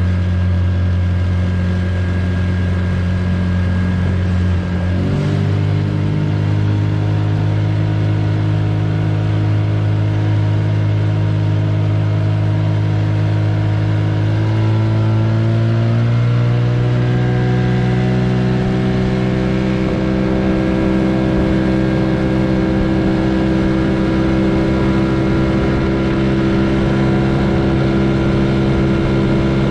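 Outboard motor of an aluminum fishing boat under way, running steadily. Its pitch steps up about five seconds in and glides higher again around the middle as the motor speeds up.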